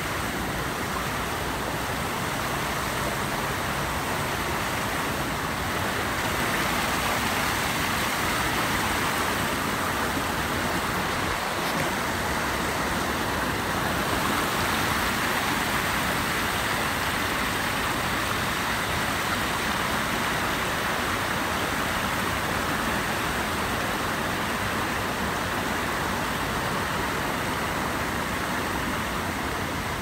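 Rainforest stream running over rocks: a steady wash of water noise that grows a little louder about six seconds in.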